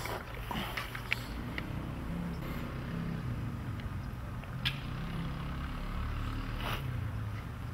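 Low, steady rumble of a running vehicle engine, with a couple of faint short clicks.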